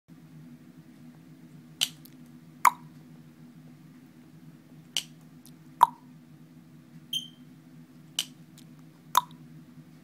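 About six sharp tongue-like clicks, spaced one to two seconds apart, and one short high chirp from a monk parakeet about seven seconds in, over a steady low hum.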